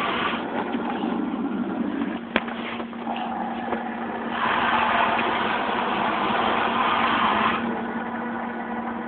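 Automatic car wash working over the car, heard from inside the cabin: a steady rushing of spray with a constant hum, louder from about four and a half to seven and a half seconds in, with one sharp click a little over two seconds in.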